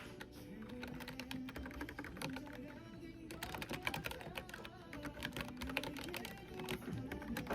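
Typing on a computer keyboard: rapid, irregular key clicks, with a short pause about three seconds in.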